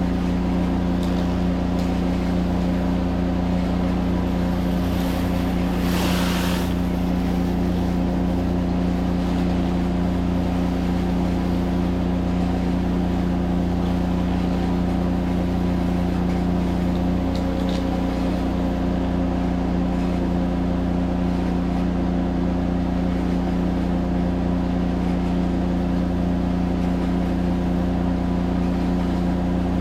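Pressure washer's engine running steadily at a constant speed, with a brief rush of hiss about five to six seconds in.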